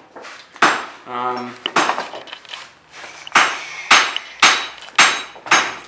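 Blacksmith's hammer striking iron on an anvil, sharp ringing blows. They are spaced out at first, then steady at about two a second from about halfway through.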